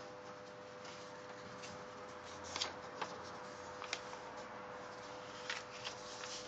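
A sheet of paper rustling as it is folded and creased by hand, with a few sharp crackles of the sheet in the middle and again near the end.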